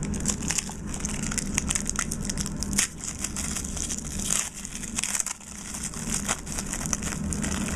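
Crinkling and crackling of a trading-card pack's wrapper being handled, a dense run of quick sharp crackles.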